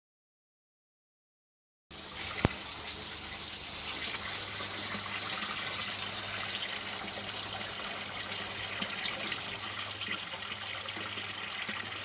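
About two seconds of silence, then water running and trickling steadily through a small PVC-pipe aquaponics grow system. A single click comes just as the water sound begins.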